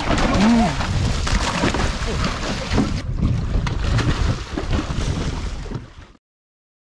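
A hooked fish thrashing and splashing at the surface beside a small boat as it is hauled in on a handline, with wind buffeting the microphone. The sound fades out to silence about six seconds in.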